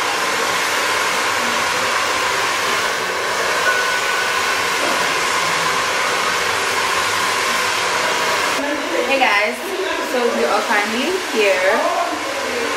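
Hair dryer running steadily, an even rushing noise with a faint steady whine. About two-thirds of the way in, a woman starts talking over it.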